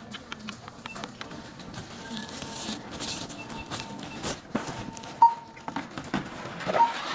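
Items being handled at a supermarket checkout: cardboard boxes and packaging knocking and rustling on the counter with scattered clicks, and a checkout barcode scanner beeping twice in the second half.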